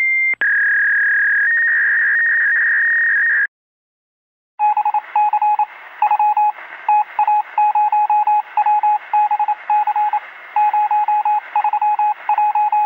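A steady electronic tone with hiss for about three and a half seconds. After a second's silence, a desk landline telephone's electronic ringer trills in quick repeated beeps at one pitch, in short bursts.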